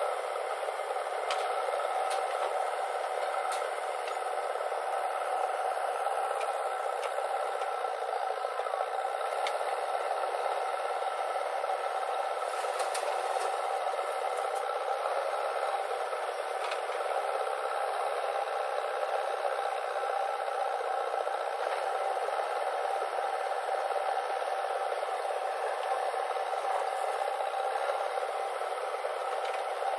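JCB 3DX backhoe loader's diesel engine running steadily at working revs while it digs and loads soil, heard as a thin, hissy steady noise with a few faint clatters.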